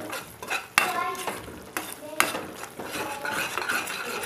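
Slotted metal spatula stirring thick masala gravy in a stainless steel kadai, with a few sharp clinks and scrapes of metal on the pan.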